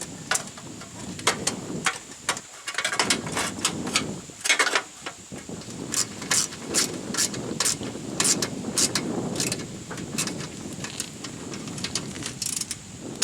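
Irregular clicks and metal knocks of riding-mower parts being handled and fitted back on, over a low rumbling noise.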